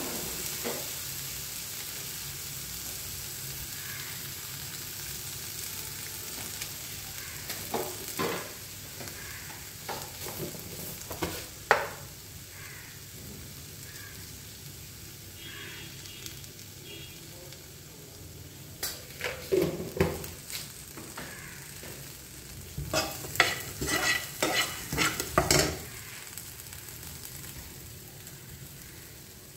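Corn kernels sizzling steadily in a hot non-stick frying pan, the sizzle slowly fading. Over it come short clusters of knocks and scrapes, heaviest about two-thirds of the way through and again near the end.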